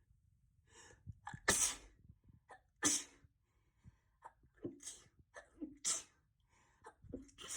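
A fit of repeated sneezing: about five sharp sneezes a second or so apart, with short sniffs between, from a nose that had been plugged all day.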